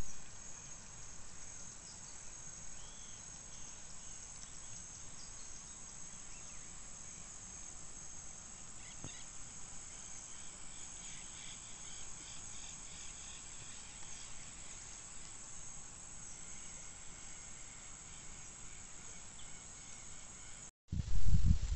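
Insects chirring in a steady high-pitched drone over a faint outdoor hiss, with scattered short chirps. Near the end the sound drops out briefly and a loud low rumble takes over.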